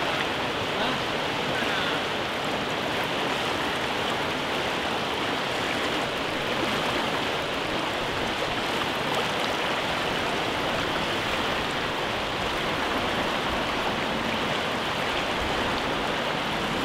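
Fast-flowing river rapids rushing with a steady, even roar of water and no separate splashes standing out.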